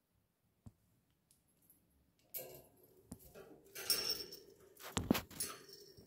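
Budgies moving about in their cage: a few light clicks, then a noisy flurry of wing flapping and clattering on the wire bars and wooden perches, with a thump about five seconds in as one lands.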